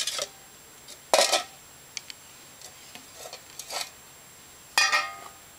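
Enamel tin plates and metal camping pans being handled and set down: a loud clank with short metallic ringing about a second in and another near the end, with lighter clinks between.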